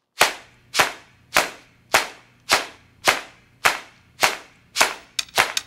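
Opening of a music track: a sharp clap-like percussion hit repeated at a steady beat about every half second, nine times, then three quicker hits near the end.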